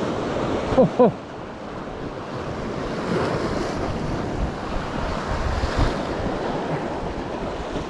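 Sea surf breaking and washing over shore rocks, a steady rushing wash, with wind buffeting the microphone.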